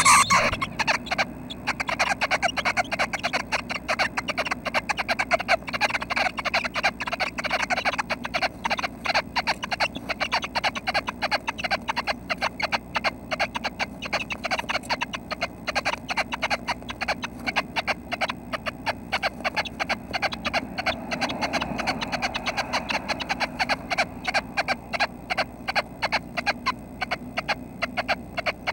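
Red-breasted nuthatch nestlings calling inside the nest cavity: a continuous run of short, rasping notes, several a second, without a pause.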